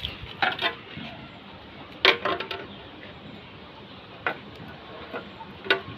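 Hard clinks and knocks of metal parts being handled, in small clusters every second or two over a steady low hiss.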